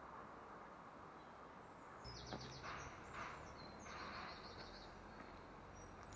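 Faint outdoor background hiss, with a small songbird singing from about two seconds in: several short bursts of quick, repeated high chirps.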